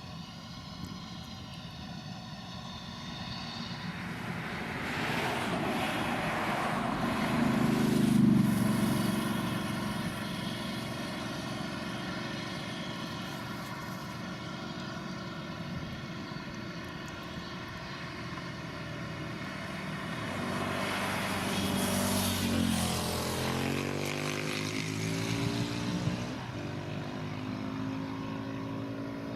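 Heavy farm machine's engine running steadily, swelling louder as it comes close about eight seconds in and again around twenty-two seconds in, its engine note sliding in pitch as it passes.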